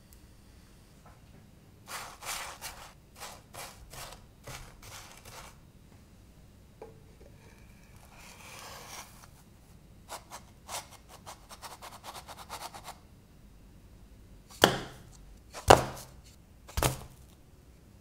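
Kitchen handling sounds: a wooden spatula clicking and scraping in an enamel frying pan as small pan-cooked pizza dough rounds are turned and lifted out. Near the end come three loud knocks about a second apart.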